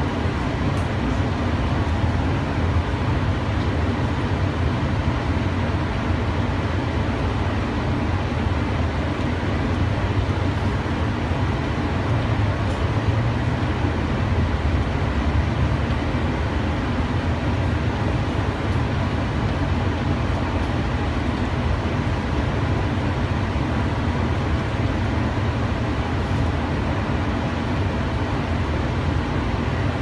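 Running noise of a cable-drawn Doppelmayr Cable Liner people-mover car travelling along its elevated guideway, heard from on board: a steady low rumble with no distinct events.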